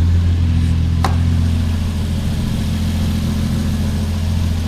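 Toyota 1JZ-GTE VVT-i turbocharged straight-six idling steadily and evenly, with a brief click about a second in. It runs smoothly with no misfire after a new VVT-i oil control solenoid and a cleaned VVT-i filter screen.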